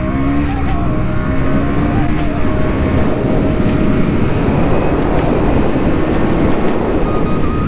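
Motorcycle engine running while riding, its pitch shifting in the first few seconds, over a dense, steady rush of noise.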